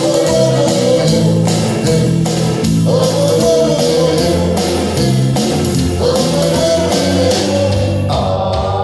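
Ukulele band playing live: massed ukuleles strumming a steady rhythm while the players sing the melody together.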